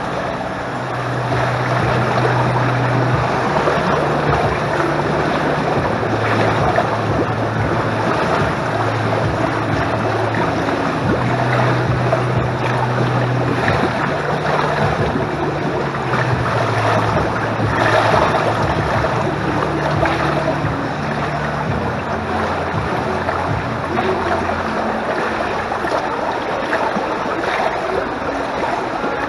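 Pool water splashing and lapping close to the microphone as a swimmer swims freestyle, with a low hum underneath that comes and goes.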